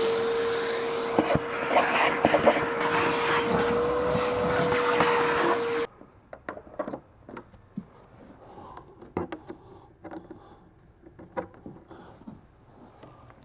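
A power tool's electric motor whirring up to speed and running steadily with a high whine, then cutting off abruptly about six seconds in. A few light clicks and knocks follow.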